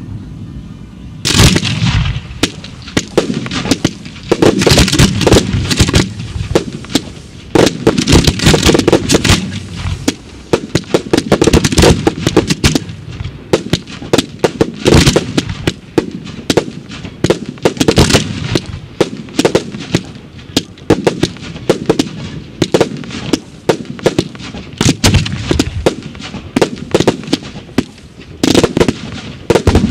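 Fireworks display: aerial shells bursting in rapid, dense volleys of sharp bangs and crackling, starting about a second in and continuing throughout.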